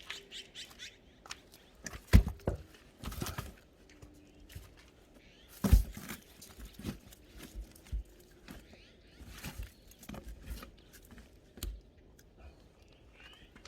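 Irregular knocks and thuds of firewood being handled, the loudest about two and six seconds in, with faint bird chirps near the start and end.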